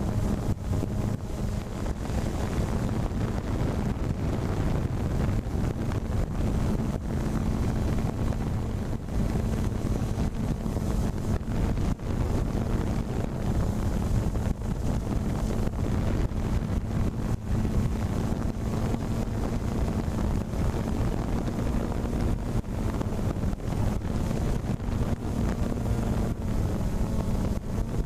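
Wind buffeting the microphone over a steady low mechanical hum.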